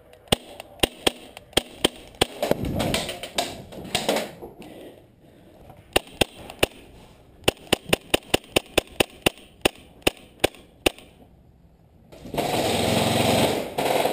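Airsoft guns firing single shots as sharp clicks, scattered at first and then a quick run of about twenty shots, two to three a second, near the middle. A loud rushing noise comes in about two seconds before the end.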